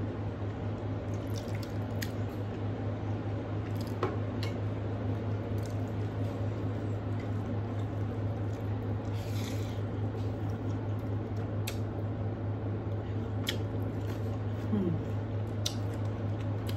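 Fingers mixing rice with fish curry on a metal plate, making soft wet squishing sounds with occasional light clicks, over a steady low hum.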